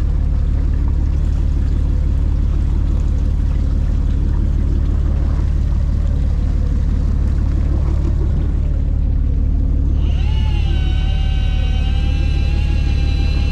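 Fishing boat's engine running as a loud, steady low hum. About ten seconds in, a high motor whine starts, bends up briefly, then holds steady.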